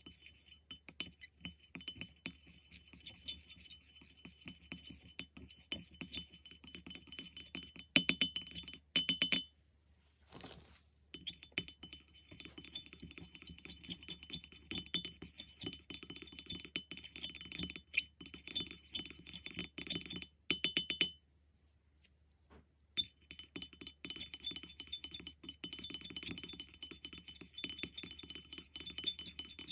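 Metal spatula stirring and scraping paint in the well of a ceramic palette: rapid small clinks of metal against ceramic with a wet squelch of the paint. A louder run of clinks comes about eight seconds in, and the stirring stops briefly twice.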